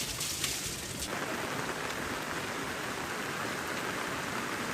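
Steady rain falling, with separate drop hits until about a second in, then an even hiss of rain.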